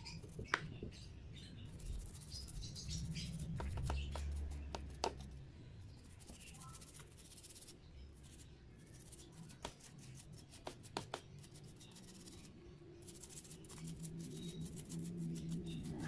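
A toothbrush scrubbing and hands handling small disassembled Hot Wheels Deora II parts: irregular light clicks and scratching of bristles on the plastic and chrome pieces, with a faint low hum underneath.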